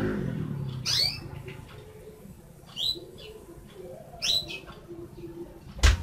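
Domestic canary giving three short, sharp chirps spaced about a second and a half apart, each a quick high sweep in pitch. A single loud click near the end is the loudest sound.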